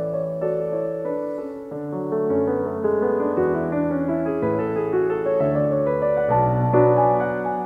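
Background piano music: a slow melody of held notes over sustained bass notes.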